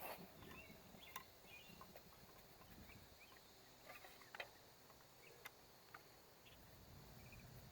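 Near silence: faint outdoor ambience with a few soft clicks and faint bird-like chirps.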